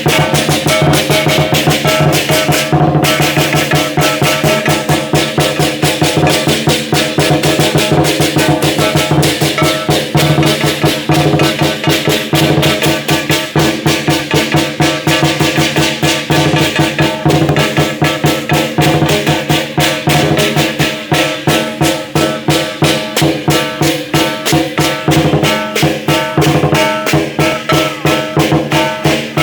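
Chinese lion dance percussion: a large drum, cymbals and a gong played together in a fast, steady, loud beat, the cymbals and gong ringing under the dense drum strokes.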